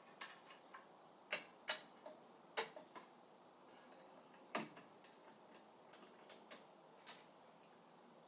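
Scattered light clicks and knocks at irregular intervals, about eight in all, the loudest near the start and around the middle. These are parts being handled and set in place while fitting the riving knife and blade guard assembly onto a DeWalt DW7485 table saw.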